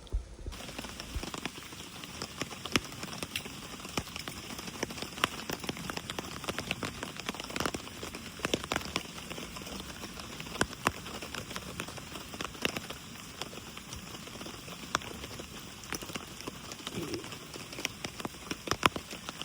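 Steady rain falling, with many separate drops tapping sharply and irregularly.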